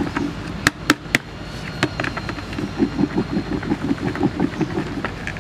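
Plastic tub of crumbled bread and soy bait being shaken by hand to mix it. A few sharp clicks come about a second in, then a fast, even run of dull knocks as the mix is tossed against the plastic.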